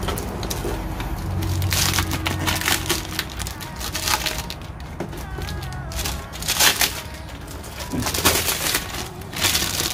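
Clear plastic wrap crinkling and crackling as a wrapped car taillight is handled and lifted out of its foam packing, in irregular crackles that come and go.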